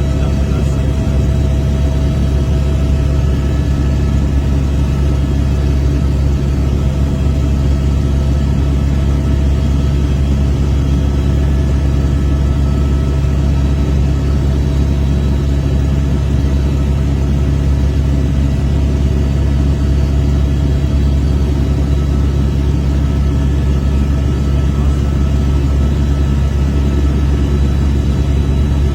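Helicopter in flight: a steady, loud low drone of rotor and engine, with a few faint steady whining tones above it.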